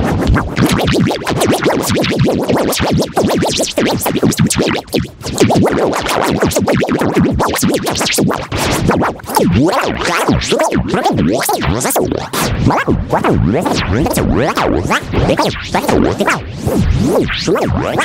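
Electronic music built from a fast, dense beat with synthesizer sounds sliding in pitch. About halfway through it thins out to about three hits a second.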